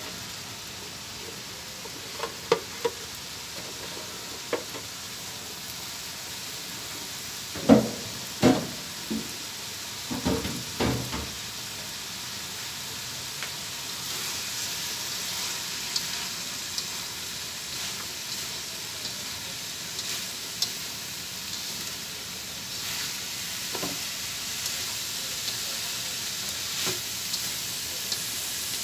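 Green beans sizzling in hot oil in a wok as they are stir-fried, with a spatula knocking and scraping against the pan. There is a cluster of louder knocks about eight to eleven seconds in, and the sizzle grows stronger in the second half.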